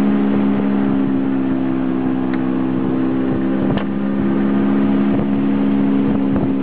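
A small sailboat's engine running steadily under way, with a couple of short knocks, the second about four seconds in, where the engine note shifts slightly.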